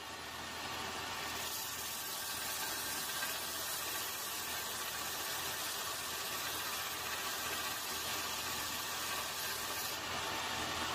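Bench belt grinder running with a steady motor hum and belt hiss, coming up to speed at the start. A small cast-metal knife guard pressed flat on the abrasive belt adds a harsher grinding hiss from about a second in until near the end.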